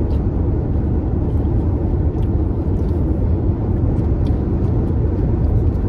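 Steady road and engine noise heard inside the cabin of a car moving at highway speed, a loud low rumble, with a couple of faint light clicks.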